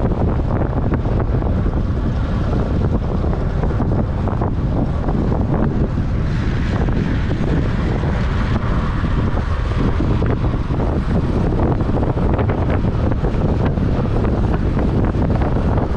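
Steady, loud wind rush on the microphone of a racing track cyclist's action camera at speed, with a higher hiss swelling for a few seconds in the middle.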